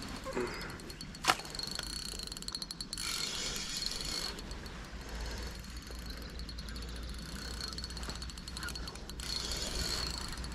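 Small spinning reel being cranked, a run of fine rapid ticks from its gears as a lure is retrieved, with one sharper click about a second in.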